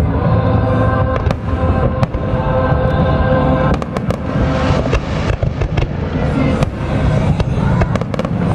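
Aerial fireworks bursting overhead in a dense, irregular run of bangs and crackles over a continuous low rumble, with music playing underneath.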